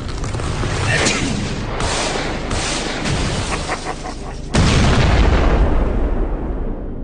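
Continuous rough noise, then a sudden loud boom about four and a half seconds in that dies away over about two seconds.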